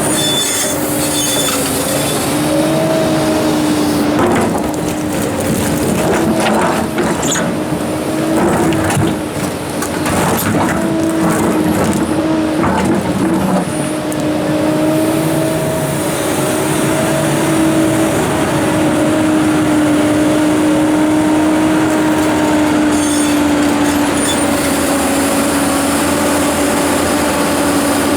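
Komatsu PC290-11 hydraulic excavator running under load with a steady whine, and scattered knocks and clanks of rock against the steel bucket, most frequent in the first half and again near the end.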